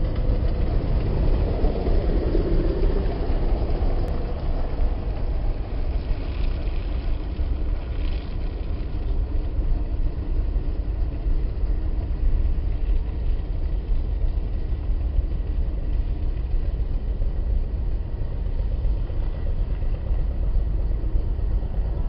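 Steady noise of car traffic on a wet city street, a constant low rumble with tyre hiss.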